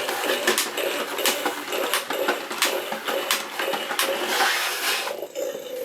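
Battery-powered Imaginext Apatosaurus toy walking: its small motor and gearbox whir steadily, with a click from the leg mechanism about every 0.7 seconds.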